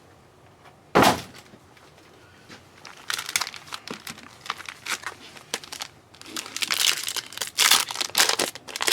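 Crinkling and rustling of a trading card pack wrapper being handled and opened. There is one sharp rustle about a second in, then a run of quick crackles from about three seconds in.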